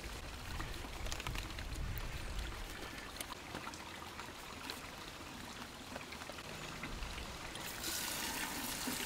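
Garden hose running water into a plastic bucket, a steady hiss that starts near the end. Before that, faint rustling and handling noises.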